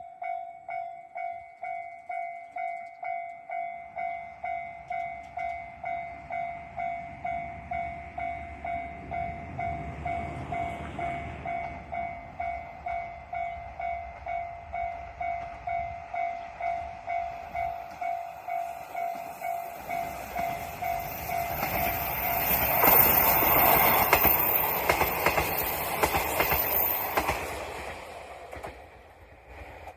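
Japanese level-crossing warning bell ringing steadily at about two strikes a second as a train approaches with a growing rumble. The train then passes over the crossing, loudest about three-quarters of the way through, drowning out the bell before fading near the end.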